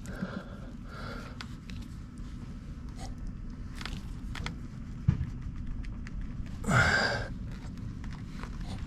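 A man's short sigh, falling in pitch, about seven seconds in, over a low steady hum, with a single sharp click about five seconds in.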